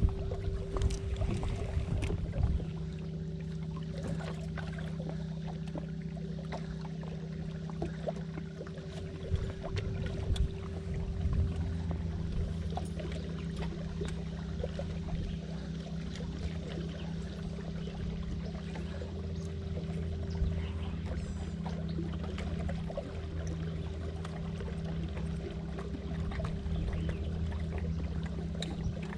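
Boat motor running steadily at low trolling speed, a constant hum, with water washing against the hull.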